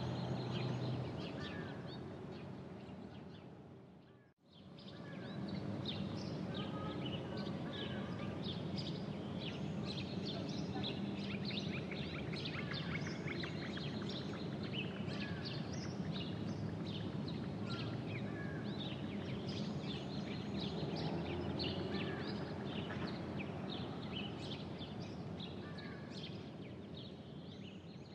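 Music fading out, then an ambience of many birds chirping over a steady low outdoor rumble, which fades away near the end.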